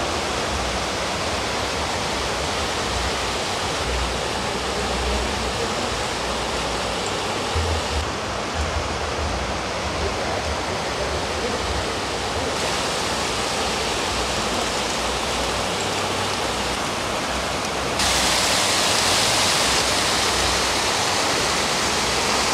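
Steady rush of running water from a water-powered grain mill's water supply, with a low rumble beneath. It grows louder and hissier about three-quarters of the way through.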